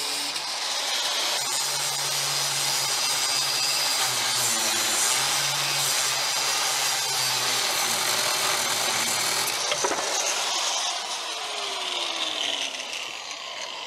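A power tool runs hard with a steady whine for about ten seconds, then is switched off and spins down with a falling whine.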